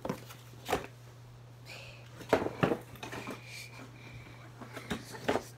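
A cardboard box holding tins of putty being handled and opened by hand: several sharp knocks and taps, with a cluster of them about two and a half seconds in, and faint scraping in between.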